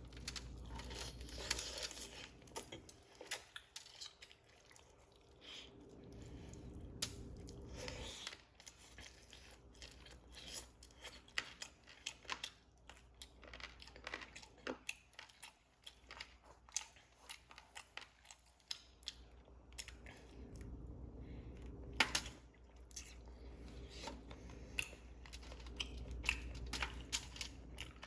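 A person chewing and tearing into chicken wings and fries close to the microphone: irregular crunchy, wet clicks and snaps of biting and chewing.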